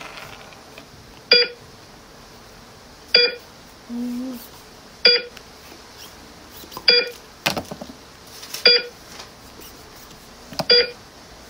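Short electronic beeps, one about every two seconds, each a clipped multi-tone bleep like a patient heart monitor. There is a brief low hum about four seconds in.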